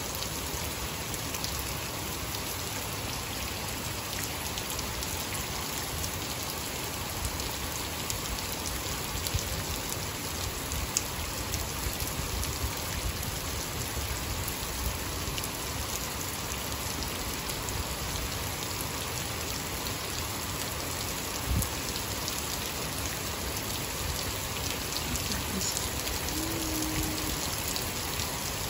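Heavy rain falling steadily, with scattered louder drop hits.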